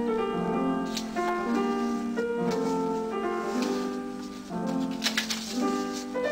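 Background piano music, with a few short clicks about five seconds in.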